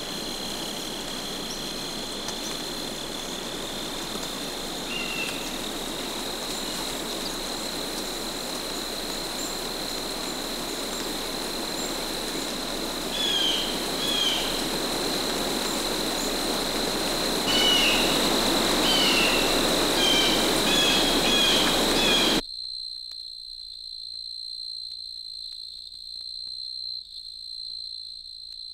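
Steady high-pitched insect trill like crickets over a hiss, with short falling chirps coming thicker from about halfway through. About three-quarters of the way in the hiss and chirps cut off abruptly, leaving only the thin high tone.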